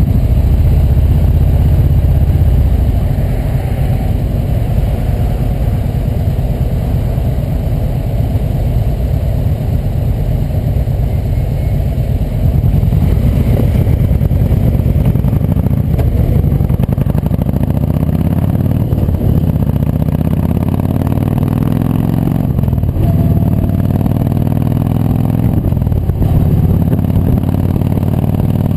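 Kawasaki Vulcan Voyager 1700's V-twin engine under way with the bike in motion. It runs low and steady at first, then from about halfway the note climbs and drops back four or five times as the bike accelerates up through the gears, over a steady rush of wind.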